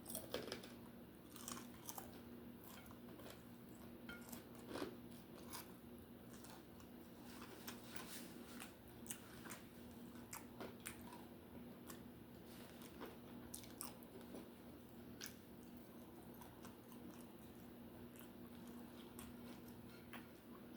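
A person chewing a cheeseburger close to the microphone: faint, irregular wet mouth clicks and smacks throughout, over a steady low hum.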